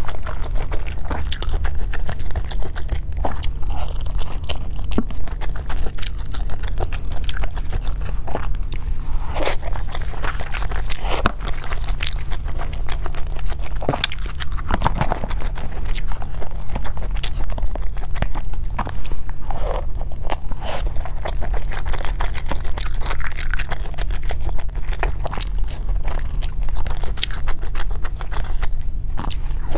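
Close-miked chewing and biting of steamed shrimp dumplings (har gow), with many small mouth clicks over a steady low hum.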